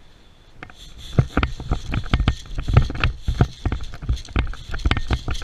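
Running footsteps with gear rattling and knocking against the microphone: irregular thuds and clicks, several a second, starting about a second in.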